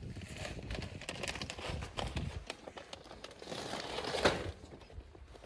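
Crinkling and rustling handling noise with dense, irregular crackles and one sharper click about four seconds in.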